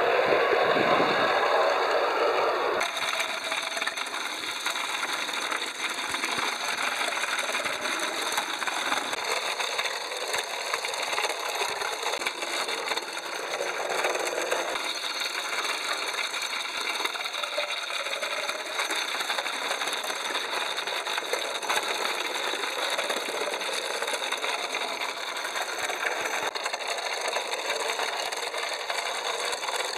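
Clockwork O gauge 0-4-4 tank locomotive running, a fast, dense clatter from its high wheel flanges striking the sleepers, which makes it bounce along the track. For about the first three seconds the sound is instead a battery-powered model tram's two small electric motors running.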